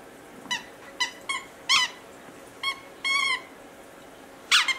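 A rubber squeaker dog toy squeaking in short, irregular bursts as a Westie puppy bites and chews it, about seven squeaks in all. One squeak a little past the middle is longer, and the last one slides down in pitch.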